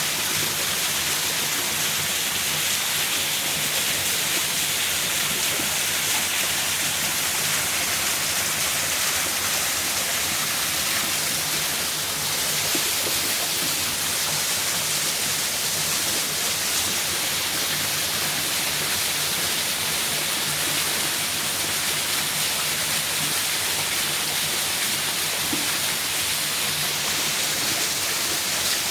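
Waterfall: a steady, unbroken hiss of falling water.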